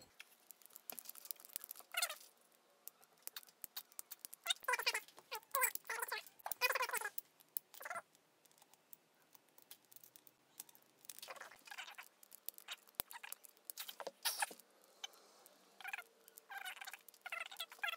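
Small ball and wooden rod rattling and clinking inside a glass bottle puzzle as it is tilted and turned, in irregular light clicks and short ringing bursts.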